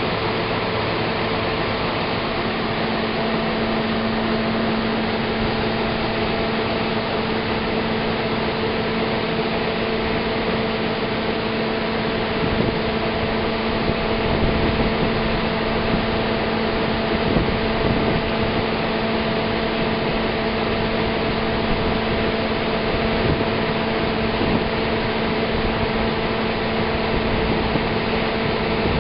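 Combine harvester running while its unloading auger empties shelled corn into a grain truck: a steady mechanical drone with constant humming tones over an even hiss.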